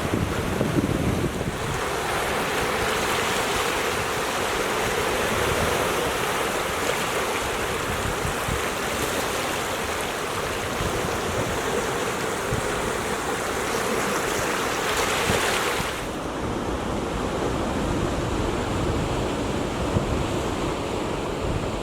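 Ocean surf: a steady wash of breaking waves, with some wind buffeting the microphone. The bright hiss of the water drops away suddenly about three-quarters of the way through, leaving a duller wash.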